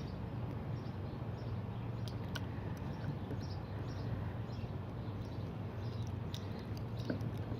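Low steady background hum with a few faint, scattered light ticks.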